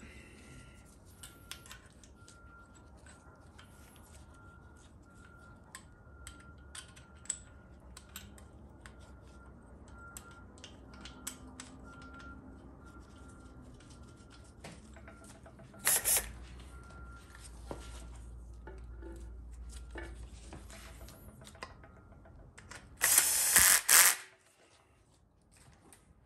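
Faint clicks and taps of metal parts being handled as a vacuum modulator and its retainer are fitted to a GM TH400 transmission case. Twice a short, loud, noisy burst breaks in: a brief one about two-thirds of the way through, and a longer one of about a second near the end.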